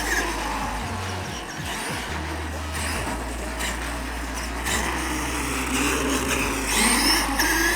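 Traxxas E-Revo electric hobby RC car's motor and drivetrain whining, the pitch rising and falling as it speeds up and slows, with a louder, rising whine near the end as it accelerates.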